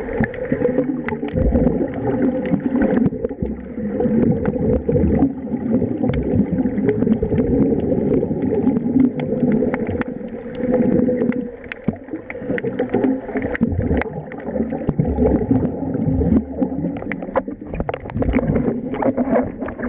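Air bubbling and gurgling out of a diver's bubble helmet fed from a scuba tank through a hose, heard underwater: a continuous, uneven rush with many small clicks and pops.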